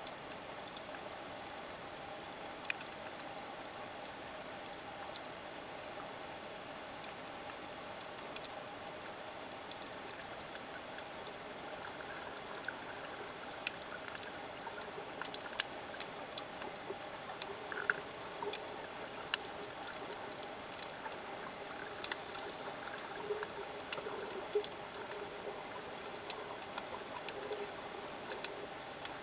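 Underwater ambience recorded through a camera submerged on a coral reef: a steady hiss with scattered sharp clicks and crackles, which grow more frequent about halfway through.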